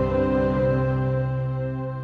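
Background music: one sustained chord held steadily and slowly fading.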